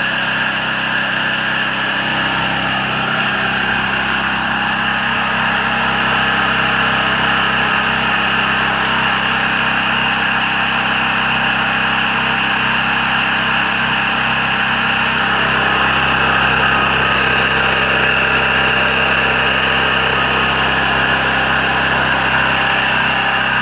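DuroStar DS4000S portable generator's 7-horsepower air-cooled overhead-valve engine running steadily at a constant speed.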